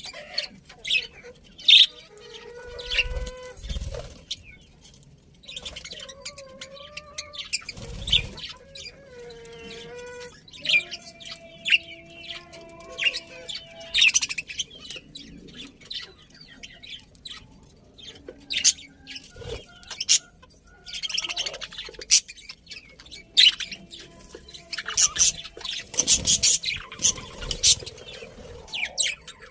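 Budgerigars chirping and chattering: many short, sharp chirps with some held, wavering lower notes in between, the chirping getting busier near the end.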